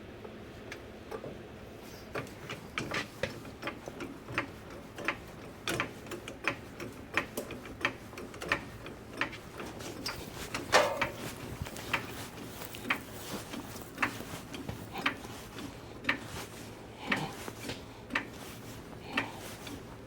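A run of light, irregular clicks and knocks, one to three a second, with one louder ringing knock about eleven seconds in.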